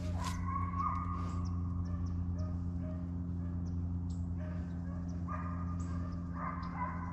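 Hunting hounds baying on a deer's trail, with long drawn-out bawls about a second in and twice more near the end, over a steady low hum.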